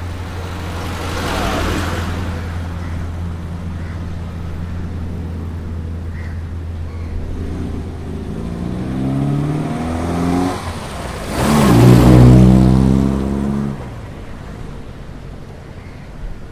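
Road traffic passing at the roadside. A steady low engine hum runs under a first vehicle going by early. Later an engine revs up and a vehicle passes close, the loudest moment about two-thirds through, its pitch falling as it moves away.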